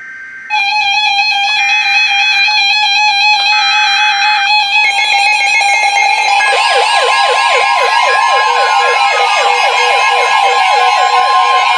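Weather radio receivers going off for an incoming severe thunderstorm warning: electronic alert tones start about half a second in, with a higher tone cutting in and out about once a second, and more tones join a few seconds later. From about six seconds in, a steady attention tone sounds under a fast, repeating siren-like yelp from the radios' alarms.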